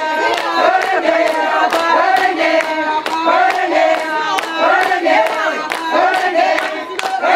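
A group of voices singing together in chorus to a steady beat of hand claps.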